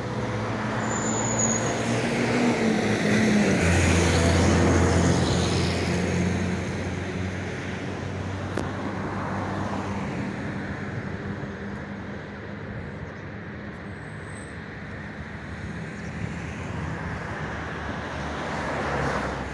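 A motor vehicle's engine running, its hum stepping up in pitch about two to three seconds in, over a steady rushing noise that swells in the first few seconds and then eases off.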